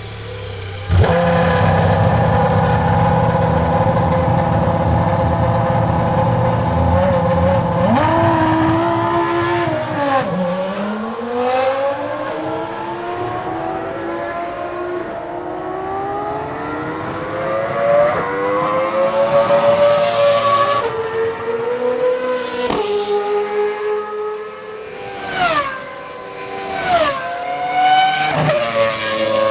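Cosworth 3.0-litre V10 of a Toro Rosso STR1 Formula 1 car, which catches and starts about a second in and then idles with a steady, high, many-toned note. It is blipped a few times, and the revs then climb as the car pulls away, with a quick run of upshifts near the end.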